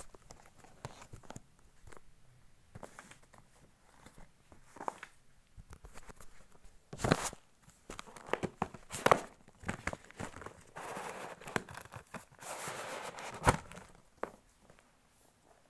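Cardboard gimbal box and its packing being opened by hand: scattered knocks and scrapes, a stretch of rustling and crinkling about two-thirds through, and a sharp knock near the end.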